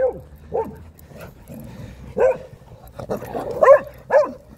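A dog barking in play, about five short barks, the last two the loudest.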